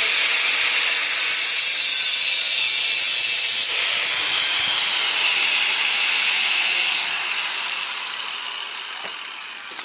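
Angle grinder grinding the steel edge of a khukuri blade, a loud, steady hissing grind. About four seconds in the disc comes off the steel and the grinder runs free, then winds down and fades over the last few seconds.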